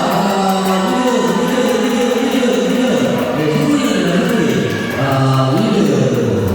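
Loud singing voices with music, in held notes that step up and down without a break.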